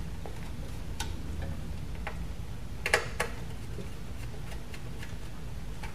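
A few short, sharp clicks and taps from a Phoenix terminal-block connector being seated and tightened with a small blade screwdriver, the loudest pair about three seconds in, over a steady low hum.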